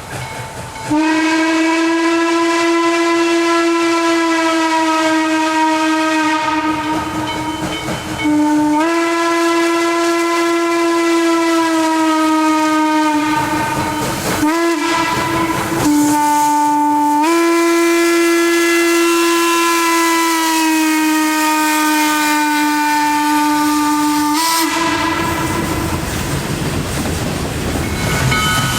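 Steam locomotive whistle blown in several long blasts, each held for several seconds with short breaks between; around the middle it drops briefly to a lower pitch before steadying again. A hiss fills the gap after the last long blast, and the whistle starts again near the end.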